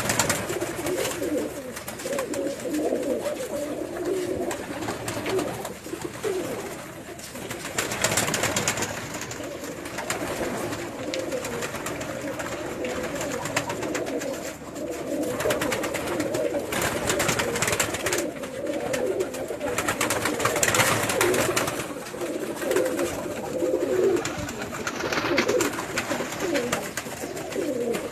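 Many pigeons cooing together, a continuous low mass of overlapping coos, with short rustling noises now and then.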